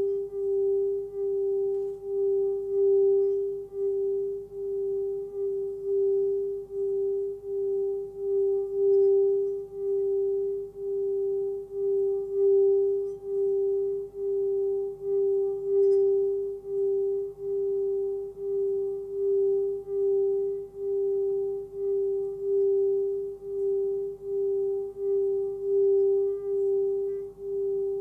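A 13 cm Tibetan singing bowl is sung by rubbing a stick around its rim, giving a sustained tone near 396 Hz (G) with a fainter higher overtone. The tone swells and fades in a steady wobble about once a second as the stick circles.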